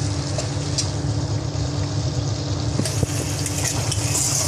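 Spatula stirring and scraping prawns in a non-stick kadai, with a light sizzle, over a steady low hum. Two small knocks of the spatula come about three seconds in.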